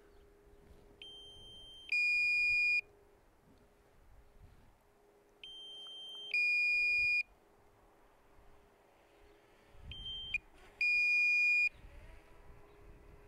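Two-note electronic warning beeps from a DJI Mini 2's remote controller, a higher tone then a lower, louder one, repeating three times about four seconds apart: the low-battery alert as the drone returns home on about 20% charge.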